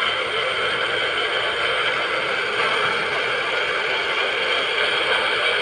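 Steady FM static hiss from the small speaker of a newly assembled FM clock radio kit, tuned off-station.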